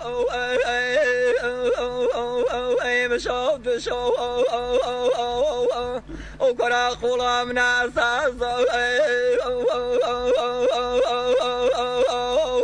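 A voice singing hore, the traditional unaccompanied Kurdish vocal style: long held phrases decorated with rapid, repeated warbling ornaments, with a short break for breath about six seconds in.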